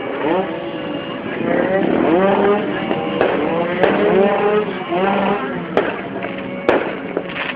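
Fireworks going off: a few sharp bangs, about four seconds in and twice more near the end, over the voices of a crowd calling out.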